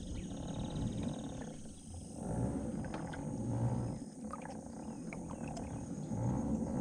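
Wind buffeting the camera's microphone: an uneven low rumble that swells and fades, with a few faint light clicks.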